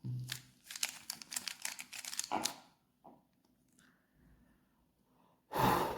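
A 3x3 Rubik's cube being turned quickly: a rapid run of plastic clicks for about two and a half seconds, then it stops. A short rushing noise follows near the end.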